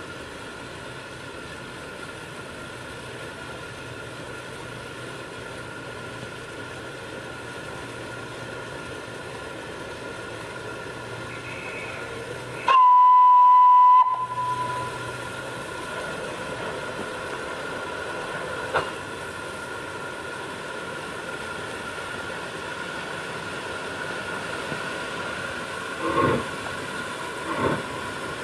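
GNR N2 0-6-2T steam tank locomotive No. 1744 standing with steam hissing steadily. Halfway through it gives one whistle blast of just over a second, then near the end it starts away with slow, heavy exhaust chuffs about one every second and a half.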